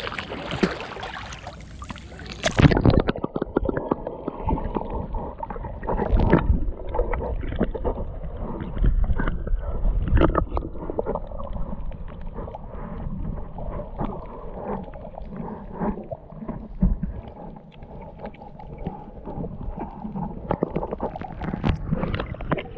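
A swimmer splashing in shallow seawater for the first couple of seconds, then muffled sloshing, gurgling and low thumps of water heard with the microphone just under the surface.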